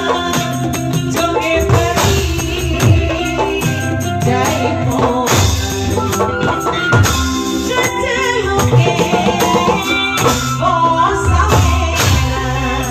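Live band music with a hand-played tambourine jingling in rhythm over bass, drums and a melody line.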